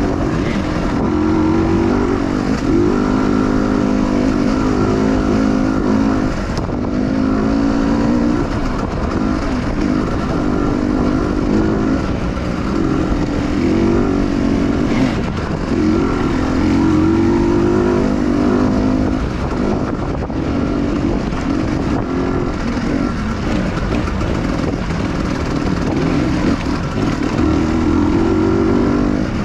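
Dirt bike engine running under load, its pitch rising and falling every couple of seconds as the throttle is opened and closed.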